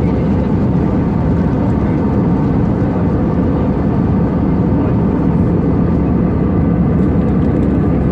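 Airbus A320 cabin noise heard from a passenger seat: a steady, low rush of engine and airflow with a faint steady whine above it.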